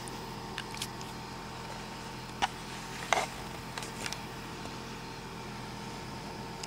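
Off-road SUV's engine running at a steady low crawl over boulders, with a few sharp clicks and knocks, the loudest about three seconds in.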